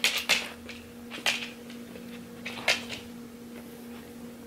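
A dog nosing into a fabric Christmas stocking: three short sniffs and rustles about a second and a half apart, over a faint steady hum.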